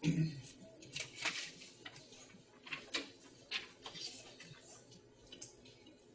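Pencils scratching and tapping on paper at desks: irregular light ticks and scratches, a few each second.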